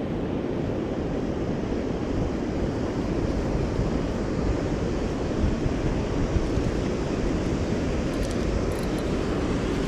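Steady rushing of water pouring over a low-head dam and churning below it, with wind buffeting the microphone.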